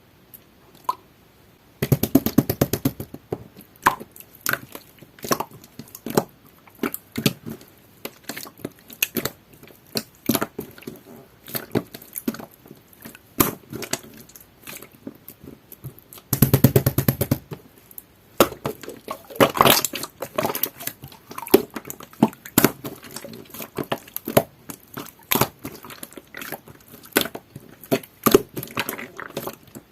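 Clear, jelly-textured slime pressed and squished by hand, giving off sharp sticky clicks and crackling pops. There are two bursts of rapid crackling, about two seconds in and again past the middle.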